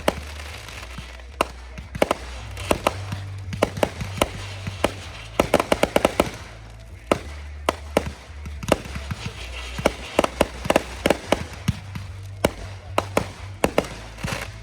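Backyard consumer fireworks going off: an irregular string of sharp bangs and crackling reports, bunched in places into rapid volleys of several a second.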